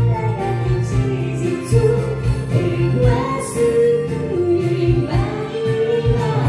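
A man singing karaoke into a microphone over a pop backing track, holding long notes over a steady bass line.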